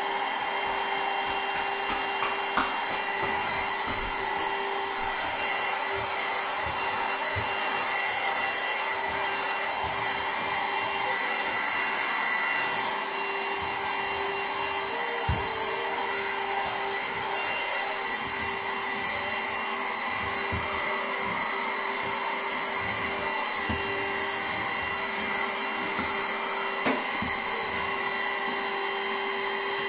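Handheld cordless vacuum cleaner running steadily with a constant whine over a high hiss, while it is passed over a tabletop. A few light knocks come through, about 2.5 s, 15 s and 27 s in.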